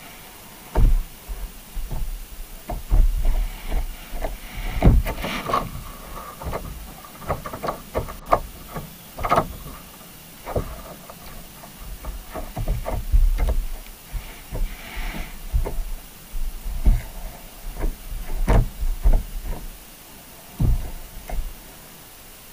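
Irregular knocks and thumps, some with a low rumble, picked up through an underwater camera housing on a seabed rig as small sharks bump and nose around it.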